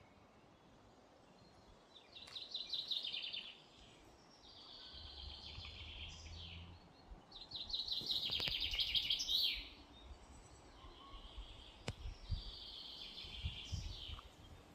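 A bird singing a series of trilled phrases, each a second or two long, repeated about every two to three seconds over a faint outdoor background. There is some low rumble and a few clicks in the second half.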